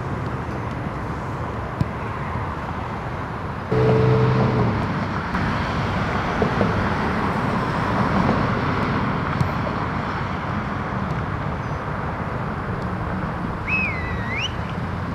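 Steady outdoor background noise that gets louder about four seconds in, with a brief high chirp near the end.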